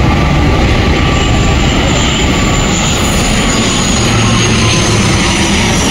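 Steady, loud rumble and rush of a moving vehicle, with a faint high whine that slowly falls in pitch.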